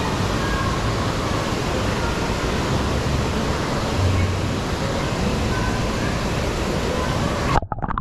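Steady rush of water from an indoor pool's wall cascade pouring into the pool. Near the end a brief splash, then the sound turns muffled as the microphone goes under water.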